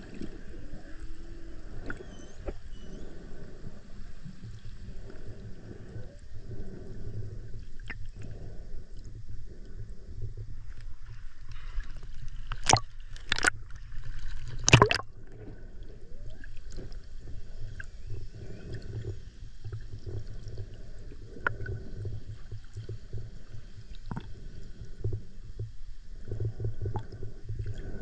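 Muffled underwater sound of a snorkeler's camera moving through the sea: a low rumble with gurgling water. About halfway, a few sharp splashes as the camera breaks the surface.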